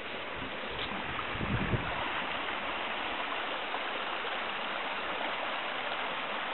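Shallow, stony stream running over rocks, a steady rushing hiss. A few low thumps come in the first two seconds.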